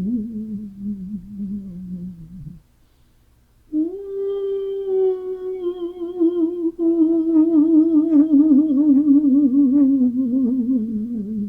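Ghost-crying sound effect: a moaning, humming wail with a wavering vibrato that sinks slowly in pitch. One short phrase breaks off about two and a half seconds in, and after a second's pause a long wail starts higher and slides down to the end.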